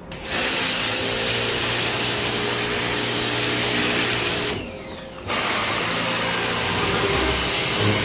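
Electric pressure washer spraying a jet of water onto an air conditioner's indoor evaporator coil, with a steady hum underneath. The spray stops for under a second a little past halfway, then starts again.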